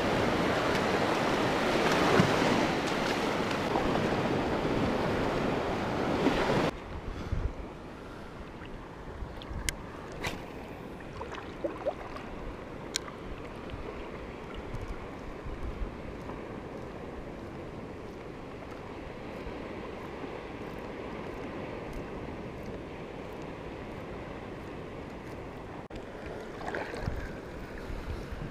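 Wind and surf at the shore: a loud rushing noise for about the first seven seconds that cuts off abruptly, then a quieter steady wash of water with a few light clicks scattered through it.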